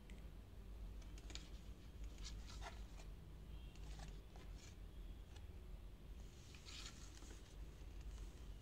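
Faint rustling and tapping of thick cardboard board-book pages being handled and turned by a child, with a longer rustle about seven seconds in as a page comes over. A low steady room hum underneath.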